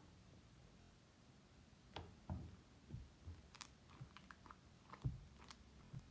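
Sticky slime being squeezed and pulled by hand: faint clicks and small wet pops, scattered irregularly from about two seconds in.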